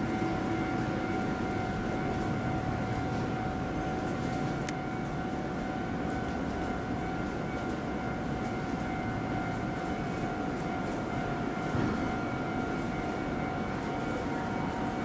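Keihan 6000-series electric train running in toward the platform: a steady rumble with a steady high whine over it. A single sharp click comes about a third of the way in.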